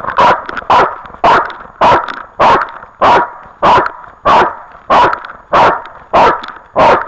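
A dog barking loud and close, about a dozen short barks in an even, steady rhythm, a little under two a second.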